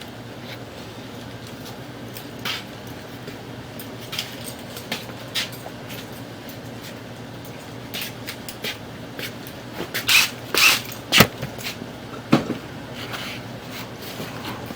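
Scattered clicks, knocks and scrapes of things being handled, with a louder cluster of knocks about ten to eleven seconds in, over a steady low hum.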